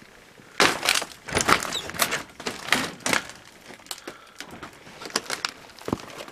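Footsteps with a quick run of crunches and knocks on a littered cabin floor, thinning to scattered single clicks after about three seconds.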